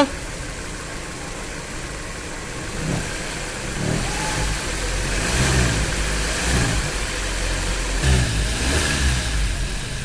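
Maruti Suzuki Baleno engine idling, then revved several times from about three seconds in. Its AC compressor belt is removed, and the humming, bearing-like noise no longer comes through, which the mechanic takes to mean the fault is in the AC compressor.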